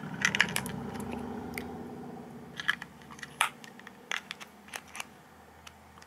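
AA batteries being fitted into a plastic remote control's battery compartment: a scatter of small sharp clicks and taps as the cells press against the spring contacts and plastic casing.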